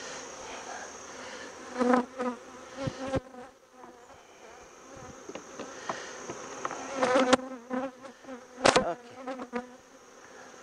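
Honeybees buzzing around an open hive, with individual bees flying close past so that the hum swells and fades several times. A few short wooden knocks come as a frame is set down into the hive box.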